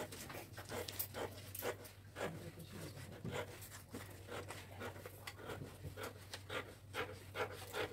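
Scissors snipping through a paper pattern sheet in a run of irregular crisp cuts, two or three a second, over a faint steady low hum.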